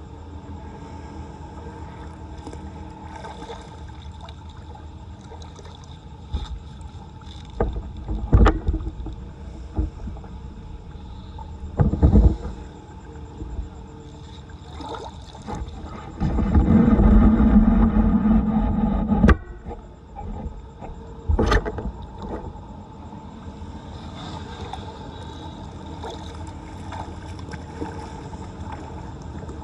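Floodwater splashing and sloshing in a flooded street around a clogged storm drain, over a steady background noise. There are a few sharp splashes, and midway a louder stretch of about three seconds.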